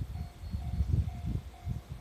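Japanese level-crossing warning bell ringing steadily at about two strokes a second, over the uneven low rumble of a freight train passing through the crossing.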